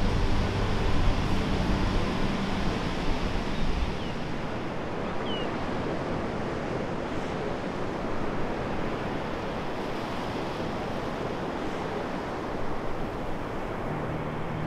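Baltic Sea surf: waves breaking and foam washing in, a steady rushing noise, with some wind on the microphone. Low background music fades out over the first few seconds and comes back near the end.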